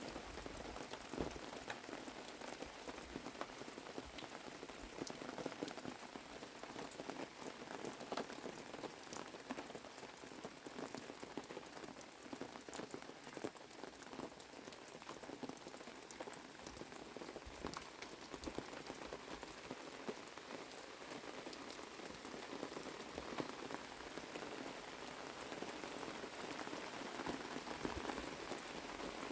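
Steady rain falling, with many separate drops ticking as they land.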